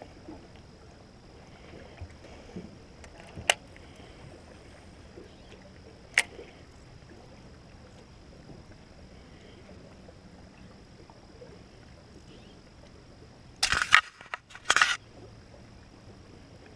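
Faint, quiet background broken by two single sharp clicks a few seconds apart, then two short bursts of knocking and clattering a little under a second apart near the end.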